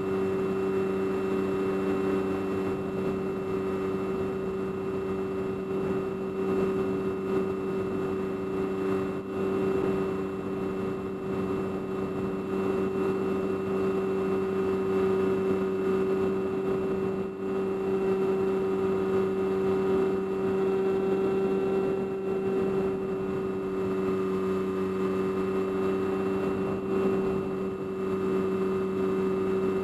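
FPV aircraft's motor and propeller droning steadily, recorded by the onboard camera, holding a few fixed pitches over a rush of air, its level swelling slightly now and then.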